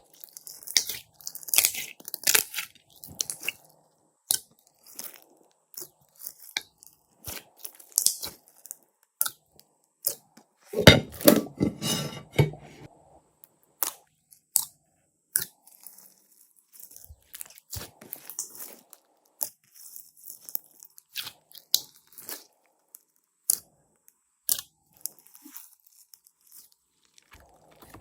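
Slime being squeezed and worked by hand: irregular sticky clicks and wet crackles, busiest and loudest a little under halfway through.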